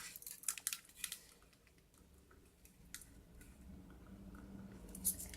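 Light clicks and taps of plastic robot-arm parts being handled and pressed onto a servo horn, mostly in the first second, with a few faint clicks about three seconds in.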